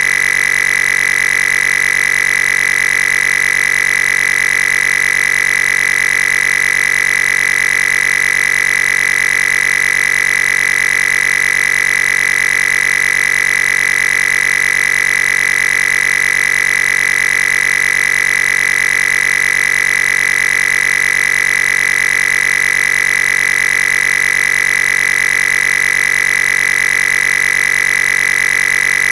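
A loud, steady electronic whine that never changes, strongest at one high pitch.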